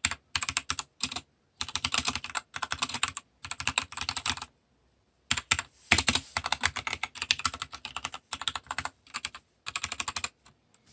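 Mechanical keyboard with PBT double-shot keycaps being typed on: runs of rapid keystroke clacks broken by short pauses, the longest about halfway through.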